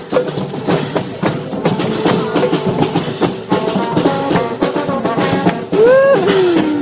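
Percussion music with drums and fast, regular strikes over sustained pitched tones. About six seconds in, a loud sliding tone rises and then falls away in pitch.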